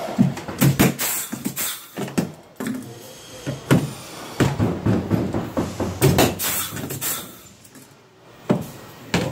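Hand tools knocking and rattling against the aluminium gunwale of a Sportspal canoe as the seat bolts are tightened with a wrench and vise grips: a steady run of irregular sharp clanks and clatters.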